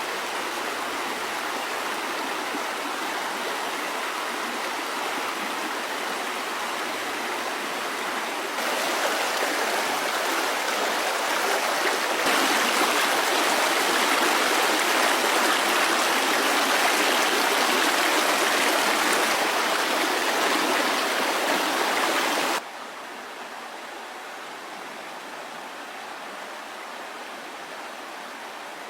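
Steady rushing of flowing water, growing louder partway through and dropping suddenly near the end.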